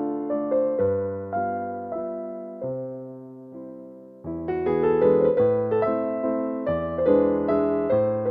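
Background piano music: a calm melody of single struck notes and chords that grows softer and fades about halfway through, then comes back fuller with a new phrase.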